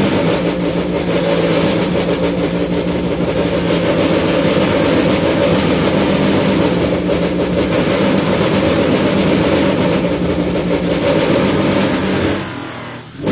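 Electric bench buffer running steadily with a hum, its wheel charged with brown polishing compound while polishing canvas micarta knife scales. Near the end the sound drops away briefly, then comes back.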